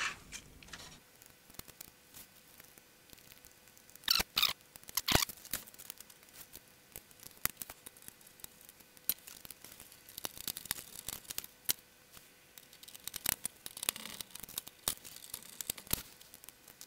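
Scattered sharp clicks and small knocks with light rubbing and scraping: circuit boards, plastic and sheet-metal parts of a Sony CHC-CL5MD micro hi-fi being handled and pushed back into its chassis during reassembly. The loudest clicks come about four to five seconds in.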